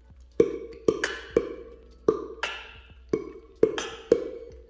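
About ten sharp percussive hits in an uneven, beat-like rhythm, each with a short ringing tail.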